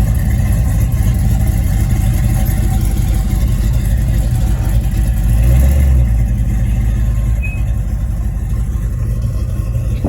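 LS-swapped 5.3-litre V8 in a 1989 box Chevy running with a deep, steady rumble, swelling briefly about halfway through and then settling back. The engine is freshly swapped and, by the owner's account, still needs a little more tweaking.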